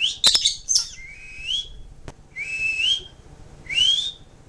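African grey parrot whistling: a quick jumble of chirps and squeaks, then three rising whistles about a second and a half apart, with a couple of sharp clicks.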